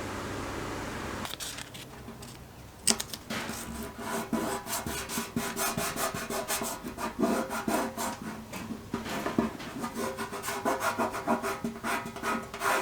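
Fast, repeated back-and-forth abrasive rubbing strokes by hand on the jerry can's metal, such as sanding or scrubbing off rust. They start with a sharp knock about three seconds in, after a steady low hum.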